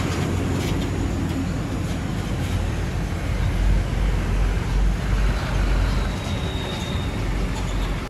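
Road traffic: heavy trucks and motorbikes passing along a road, with a steady deep engine rumble that swells about halfway through as a large Hino box truck drives past close by.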